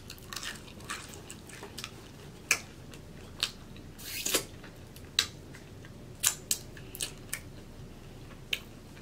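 Close-up mouth sounds of a person eating nachos with her fingers: wet chewing and sharp lip smacks roughly once a second, with a longer wet sucking sound about four seconds in as she licks her fingers.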